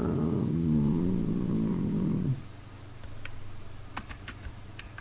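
A man's low, drawn-out hum with a wavering pitch, lasting about two seconds, then a few faint, sharp clicks.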